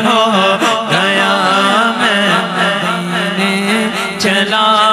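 Male voices singing a naat, devotional Urdu poetry in praise of the Prophet, through microphones. A lead voice carries a winding, ornamented melody over a steady low note held underneath.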